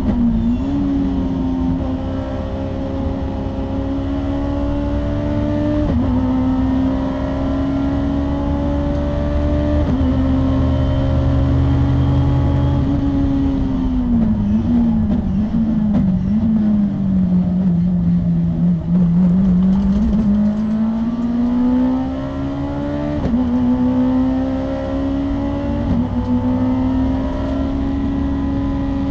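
Honda S2000 race car's 2.0-litre four-cylinder engine heard from the cockpit, held at high revs on the throttle with quick gear changes. About 14 seconds in the revs fall away under braking with short blips on the downshifts, then climb steadily again as it accelerates out of the corner.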